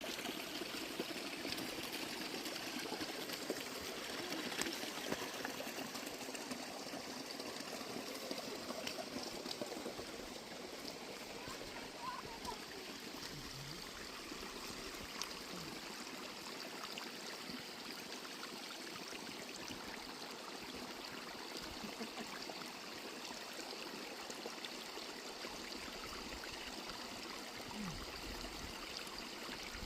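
Stream flowing: a steady rush of running water.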